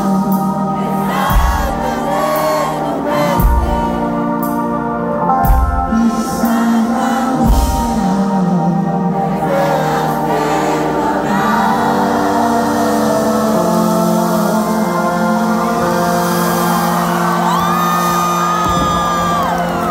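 Live band and singer playing the end of a song: heavy drum and bass hits about every two seconds for the first eight seconds, then sustained chords held out to the close.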